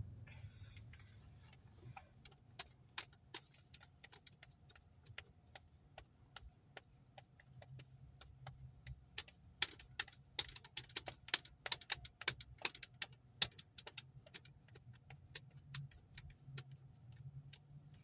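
Many sharp, irregular clicks, thickest in the middle, over the low steady hum of a car idling, heard from inside the cabin.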